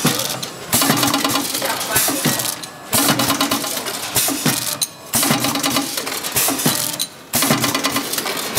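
Vertical form-fill-seal sachet packing machine running through its bagging cycle: a steady clatter of clicks and mechanical noise that dips briefly about every two seconds as each cycle repeats.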